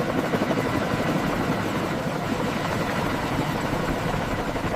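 Chinook heavy-lift helicopter running steadily overhead, its rotors and engines making a constant rotor noise.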